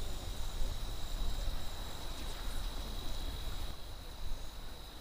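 Steady high-pitched insect trilling, like crickets, over a constant low rumble.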